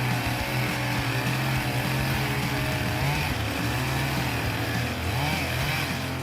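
Chainsaw running steadily, its engine pitch rising and falling as it is worked.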